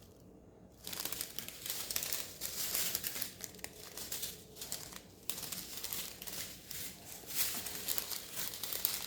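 Small plastic bags of diamond painting drills crinkling as they are handled. The crinkling starts about a second in and goes on with brief pauses.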